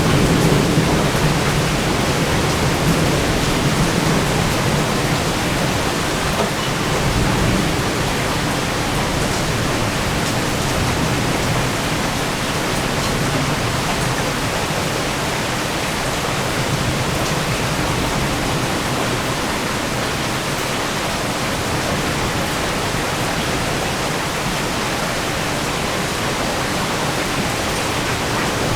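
Heavy thunderstorm rain pouring steadily, with the tail of a low thunder rumble dying away over the first several seconds.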